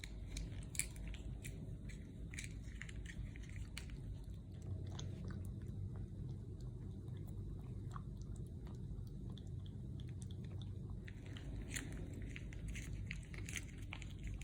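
A calico cat eating from a food pack: small wet chewing and lapping clicks, in a spell over the first few seconds and another near the end, over a steady low rumble.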